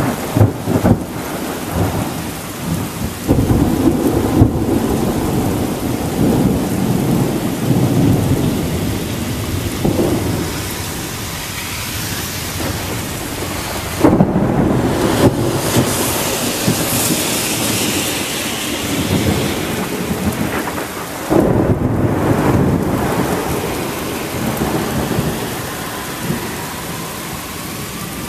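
Thunderstorm: rain falling steadily while thunder claps break in suddenly about three, fourteen and twenty-one seconds in, each rumbling on for several seconds.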